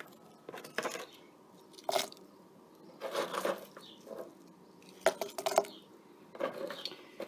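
Frozen green bell pepper chunks being tipped from a plastic container into a slow cooker's crock: several short knocks and crunches at irregular intervals as the frozen pieces drop in and the container is handled.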